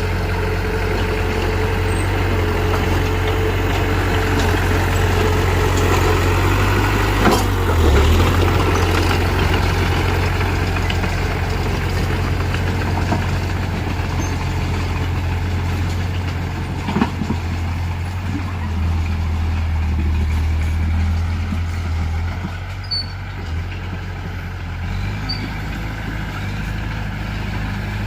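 Heavy diesel engine of earthmoving machinery running steadily, its note shifting a little now and then, with sharp knocks about seven and seventeen seconds in.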